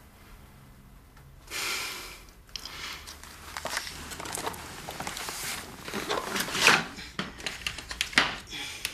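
An injured man moving on a sofa: a rustle, then a run of light knocks and handling noises as he shifts forward and takes up a crutch, with strained breaths.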